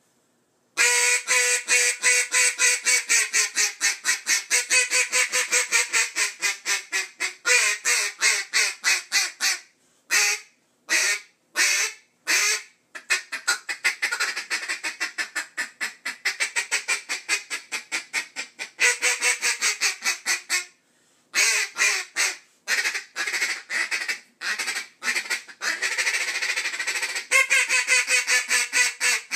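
Duck Commander 'The Ringer' single-reed acrylic duck call blown in long runs of rapid quacks. The runs are broken by a few short pauses, with a handful of separate, spaced quacks about ten seconds in.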